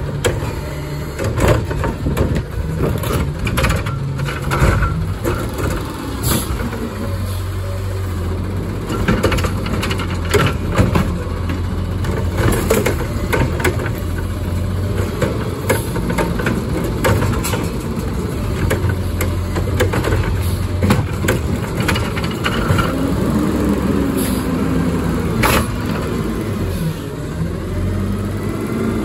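Garbage truck engine running, speeding up for stretches, with repeated sharp clanks and knocks throughout.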